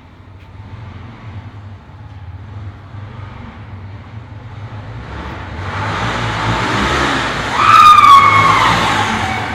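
Motorcycle engine growing steadily louder as it comes closer, with a short high squeal that slides down in pitch at the loudest point, near the end.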